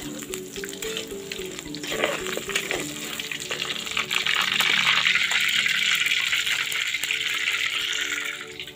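Tofu cubes frying in hot oil in a wok, with the clicks and scrapes of a metal spatula stirring them. About four seconds in, the sizzling grows much louder as the pieces are lifted out with a perforated skimmer, then drops away near the end.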